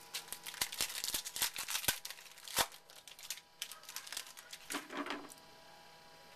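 Trading-card pack wrapper crinkling, with cards clicking against each other as they are handled: a dense run of sharp crackles that stops about five seconds in.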